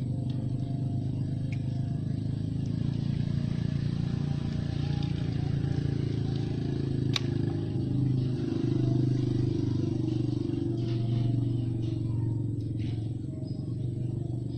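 A motor engine running steadily with an uneven low hum, and a single sharp click about seven seconds in.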